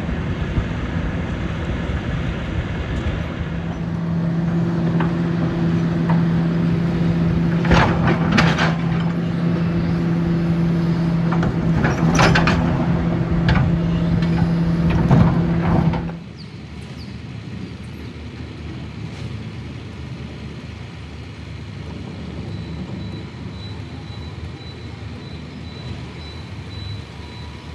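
Heavy demolition machinery running with a steady low drone, with several loud crashes and clatters of debris; about halfway through, the sound cuts abruptly to a quieter, steady machine hum.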